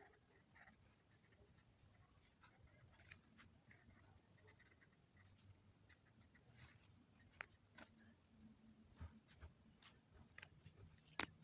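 Faint scratching and squeaking of a felt-tip marker drawing strokes on paper, with a few light ticks and one sharper click about 11 seconds in.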